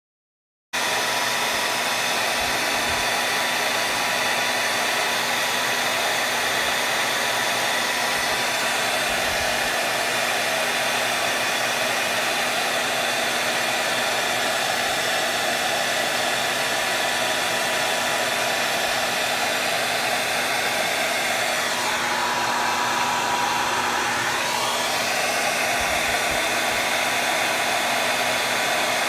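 Handheld hair dryer running steadily, a constant rush of blown air with a motor hum, starting abruptly under a second in. About three-quarters of the way through, its tone briefly swoops down and back up.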